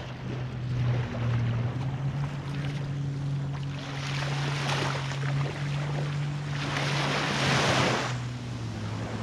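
Surf washing on the shore and wind buffeting the microphone, swelling twice in the second half, over a steady low hum.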